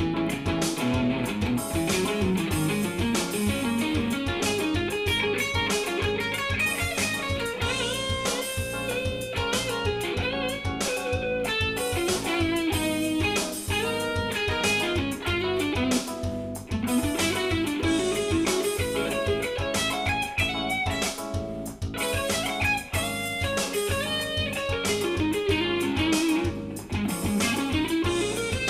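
Semi-hollow electric guitar played through a small combo amp: fast fusion single-note lines built from superimposed pentatonic scales, running up and down in repeated waves.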